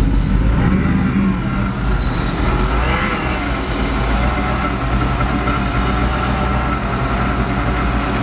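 A steady engine or motor running at an even, unchanging speed.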